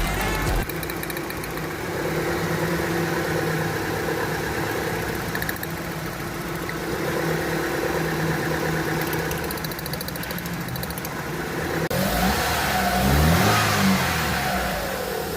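Car engine with a misfire idling, then revved once about twelve seconds in, its pitch rising and falling back to idle.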